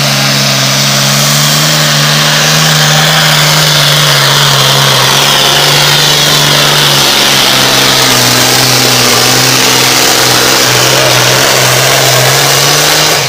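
Super Farm class pulling tractor's diesel engine running loud and steady at full throttle under load during a pull. Its pitch sags slightly partway through, and the sound falls away sharply at the very end as the throttle is cut.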